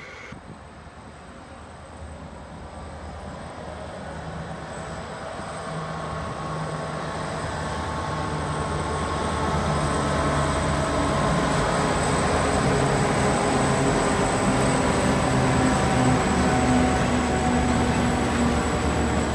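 Two G-class diesel-electric freight locomotives approaching and passing, their engines growing louder over about ten seconds, followed by a rake of hopper wagons rolling past on the rails.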